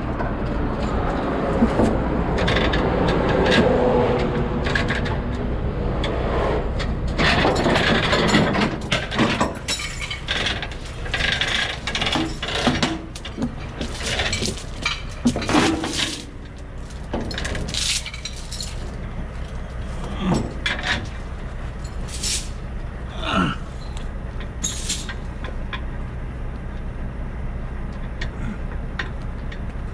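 A heavy truck's diesel engine running steadily, with repeated metallic clanks and rattles of recovery chains being unhooked and handled, thickest in the middle of the stretch.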